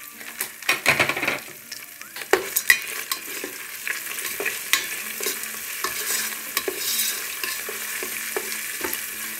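Whole spices and cumin seeds frying in hot oil in a rice cooker's metal inner pot as they are tempered. A plastic spoon stirs them, with irregular scrapes and taps against the pot over a faint sizzle.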